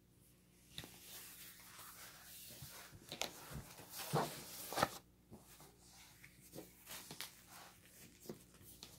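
Rustling and crinkling of a rolled diamond painting canvas and its paper and plastic wrapping being handled and unrolled on a table, with a few sharp clicks between about three and five seconds in, then quieter handling.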